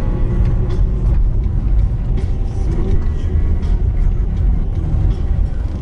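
Steady low rumble of a car driving, engine and road noise heard from inside the cabin.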